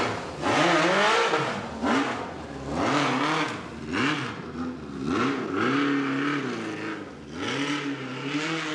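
Motorcycle engine revved again and again as the bike pulls away, its pitch rising and falling about once a second.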